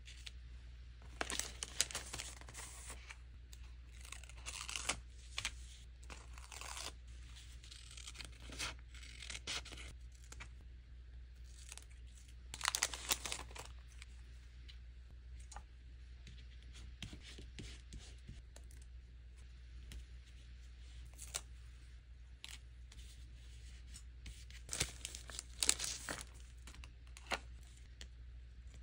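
Close-up paper handling: paper scraps and stickers being peeled, torn and rustled in short irregular bursts, the loudest near the start, in the middle and near the end, with quieter gaps between. A low steady hum runs underneath.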